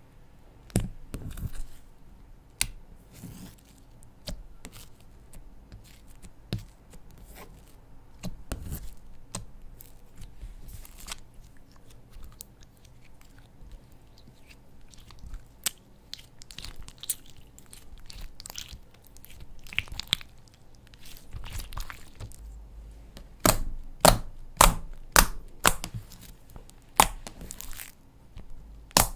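Slime being squished and stretched by hand, with sticky crackling pops and clicks. Near the end comes a run of louder pops, about two a second.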